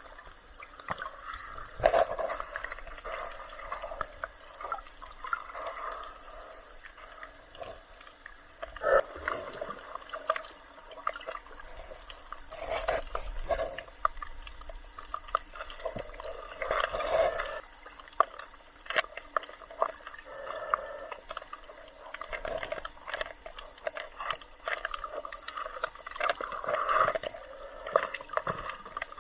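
Muffled water sounds around a snorkeler's camera: water sloshing and gurgling that swells every few seconds, with scattered sharp clicks.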